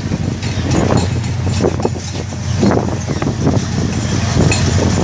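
Squid-jigging vessel's deck machinery: a steady low hum from the ship's engines and automatic jigging machines running, with irregular slaps and clatter as squid are thrown from the jigging rollers onto the squid-covered deck.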